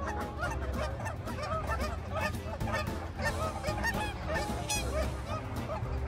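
A flock of Canada geese honking, many short calls overlapping continuously, over a low steady rumble.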